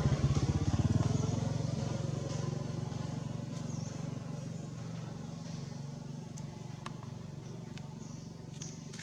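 A motorcycle engine running close by, loudest in the first second and then fading away steadily as it moves off.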